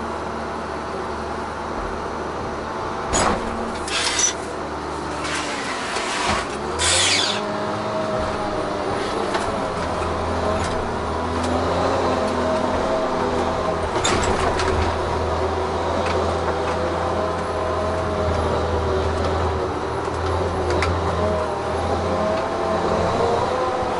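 Tigercat 1075B forwarder heard from inside the cab, its diesel engine running steadily. A few clunks and hisses come from the crane and hydraulics about three to seven seconds in. After that the engine and drive pull under load, with a whine that rises and falls as the machine drives over rough forest ground.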